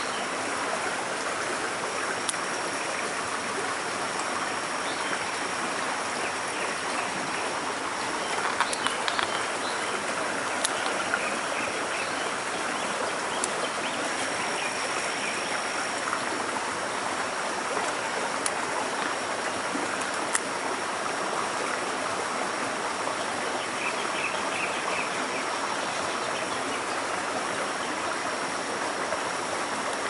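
Shallow stream water running and trickling steadily over rocks, with a few scattered sharp ticks, several close together about a third of the way in.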